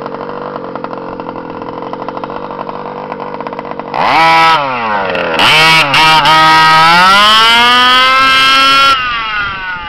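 HPI Baja 5B 2.0 RC buggy's two-stroke engine with a DDM Dominator tuned exhaust pipe, idling with a fast burble. At about four seconds it goes to full throttle and gets much louder; the pitch dips as the buggy pulls away, then climbs steadily. The throttle is shut about a second before the end and the sound falls away.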